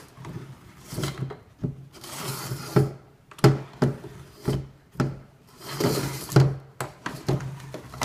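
Stiff Marathon Plus wheelchair tire being worked off its rim by hand: irregular rubbing and scraping of the rubber bead along the rim, with several sharp snaps as it slips free.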